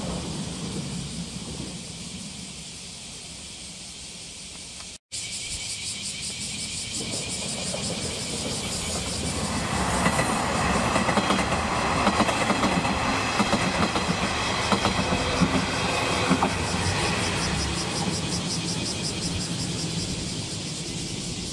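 Diesel railcars on the line. The first fades away, and after a brief break about five seconds in a second approaches and passes. Its sound is loudest in the middle, with a run of wheel clicks over the rail joints, then it fades toward the end.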